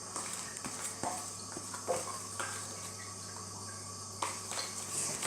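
Soap-and-borax slime being worked by hand or with a mixing tool: faint wet squelches and small sticky clicks, scattered and irregular, over a steady low hum.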